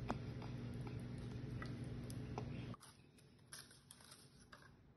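Wooden spoon stirring thick brownie batter in a mixing bowl, faint scrapes and small knocks over a steady low hum; it cuts off suddenly nearly three seconds in, followed by faint light ticks of paper cupcake liners being set into a muffin tin.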